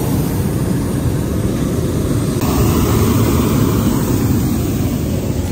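Hot air balloon's propane burner firing in a long, steady blast.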